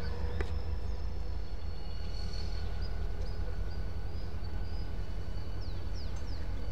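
Distant diesel freight locomotive running as it approaches slowly, heard as a steady low rumble, with a few short bird chirps about six seconds in.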